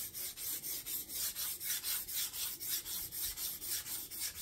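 Pencil scribbling across the face of a wide wooden slab in quick back-and-forth strokes, about five or six a second: marking the surface with pencil lines as a guide before sanding.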